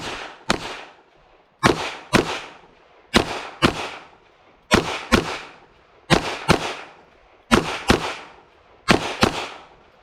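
Smith & Wesson M&P 2.0 semi-automatic pistol firing .22 WMR rounds in quick pairs, two shots about half a second apart, with a pair about every one and a half seconds: seven double taps in all, each shot sharp with a brief echo.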